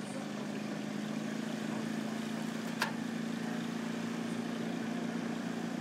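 Motorbike engine running steadily at a constant cruising speed, with road and wind noise. One sharp click comes about three seconds in.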